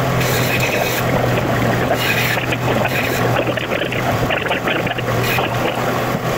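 A power tool's motor running steadily with a low hum, along with a coarse grinding or sanding noise that rises and falls as the walnut handle blank is worked against it.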